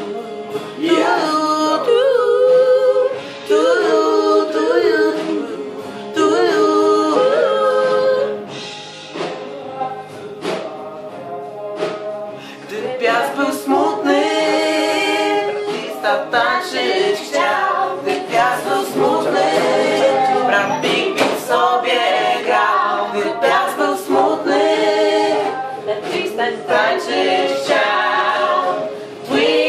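Several voices singing together a cappella, at least two men among them. The singing drops to a quieter passage about a third of the way through, then picks up loudly again.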